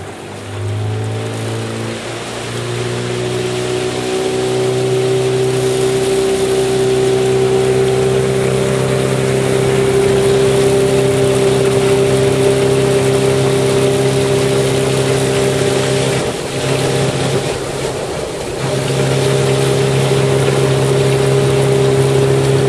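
Outboard motor on a small fishing boat speeding up, its pitch rising over the first few seconds, then running steadily at cruising speed. Its level falls briefly about three-quarters of the way through, then recovers.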